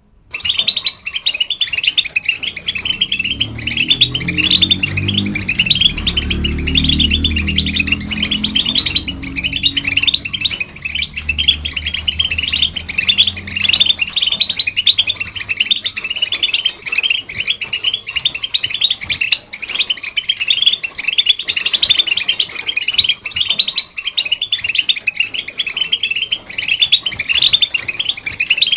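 European goldfinch singing: a fast, continuous twittering of short chirps and trills that starts abruptly just after the beginning. A low droning tone sits underneath during roughly the first half.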